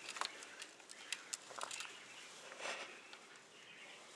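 Irregular small clicks and light splashes of water as an Eastern painted turtle paddles and scrabbles in a shallow plastic bucket.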